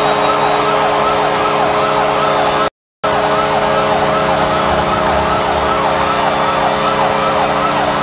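Ice hockey arena goal horn sounding a steady chord, with a rapidly repeating siren-like wail over it and a cheering crowd beneath, marking a home-team goal. The sound drops out for a moment about three seconds in.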